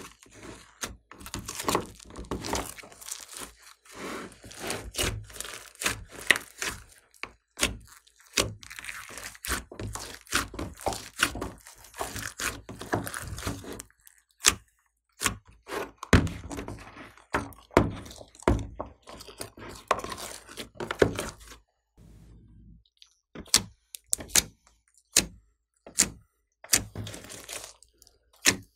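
Hands kneading and folding glossy white slime mixed with foam beads, making a quick, irregular run of sticky wet clicks and pops as the slime is squeezed and pulled. There is a short lull a little past the middle, then sparser, sharper pops.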